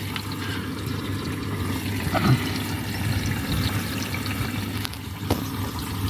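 Indesit EcoTime washing machine filling its drum with water on a delicates 30 wash: a steady rush of incoming water over a low hum, with one sharp click about five seconds in.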